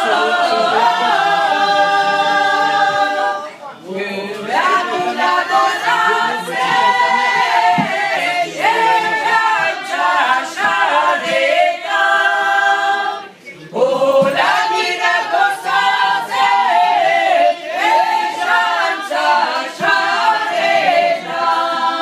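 A group of mostly women singing a Basque song together, unaccompanied. The singing breaks off briefly twice, about four seconds in and again near the middle.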